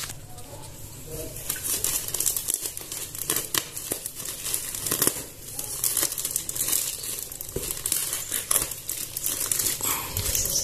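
Clear plastic bag crinkling and rustling as hands pull it open, growing busier about two seconds in.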